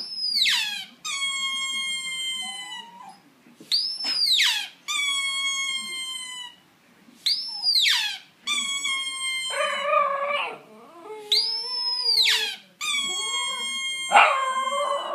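A squeaky toy squeezed about four times, each a sharp high squeak followed by a drawn-out whistling tone, while an Italian greyhound howls along in a wavering voice, about ten seconds in and again near the end.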